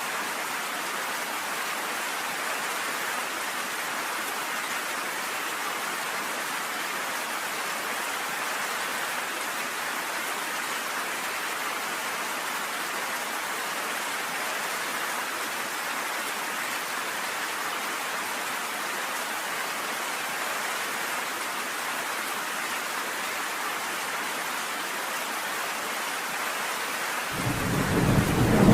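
Steady rain pelting down on a cabin porch, an even hiss. Near the end a loud roll of thunder rumbles in and builds.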